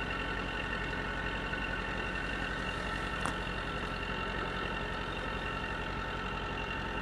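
Natural gas compressor station running: a steady mechanical drone with several steady high-pitched tones over it, and one faint click about three seconds in.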